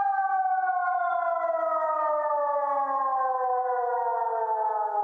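Horn loudspeakers of a homemade siren rig playing an ECN 600 civil-defence siren sound. Its tone, with several overtones, slides slowly and steadily down in pitch as it winds down.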